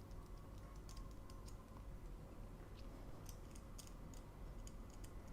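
Faint, irregular small clicks and taps as the rotisserie spit and forks are handled and fitted together.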